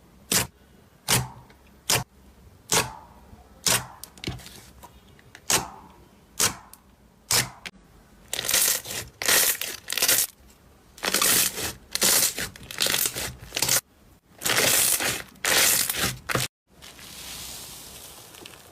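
Slime being handled: sharp sticky pops and clicks one or two a second at first, then longer crackling squishes for most of the rest, and a softer steady crackle after a brief cut near the end.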